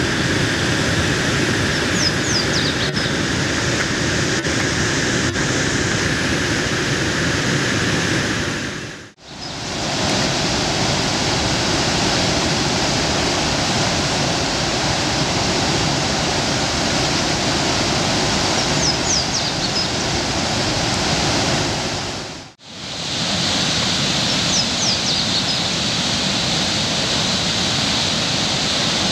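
Whitewater rushing steadily out of the Pattison Forge tunnel, a man-made flume cut through limestone, and pouring into the river. The sound drops out briefly twice where the takes change.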